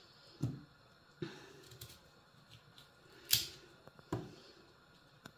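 Paring knife cutting quince into small cubes in the hand, pieces dropping into a stainless steel bowl: a few sharp taps and clicks at irregular intervals, the loudest a little past halfway.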